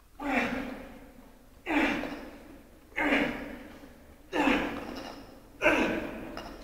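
Repeated sledgehammer blows with breath, five in all about 1.4 seconds apart, each starting sharply and fading over about a second with a gasp-like sound.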